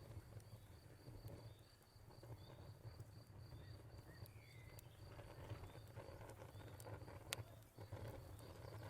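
Faint crackling wood fire, scattered sharp pops with one louder pop about seven seconds in, over a low steady rumble, with a cricket chirping in quick, even pulses and a single short bird note about four seconds in.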